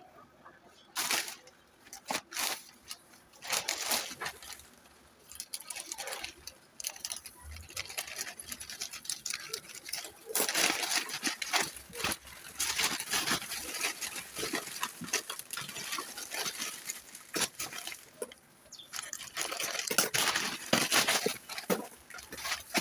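Earbud retail packaging being handled and opened: plastic and cardboard crinkling and rustling in irregular bursts, with sharp clicks and taps between quieter pauses.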